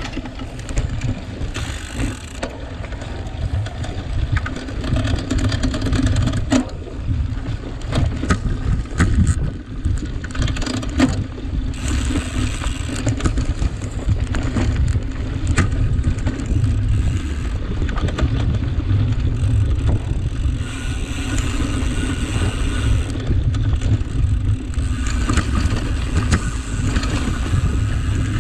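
A cyclocross bike being ridden hard over rough ground: a constant low rumble of wind and ground on the microphone, with frequent knocks and rattles from the bike, and a brighter hiss of tyres on the surface in the last third.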